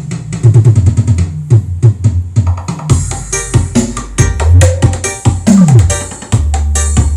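Electronic sound-check music with drum-machine beats and heavy bass, played through a PA system of an 18-inch subwoofer and 12-inch mid-high speakers. A falling bass sweep comes past the middle, and a long deep bass note is held near the end.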